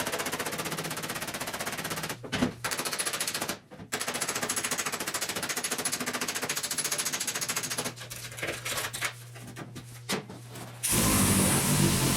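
Rapid, rattling hammering on the sheet metal of a Triumph Spitfire's trunk, knocking down a high, dented area of the panel. It comes in long runs of fast strikes with short pauses between them. Near the end a different steady noise takes over.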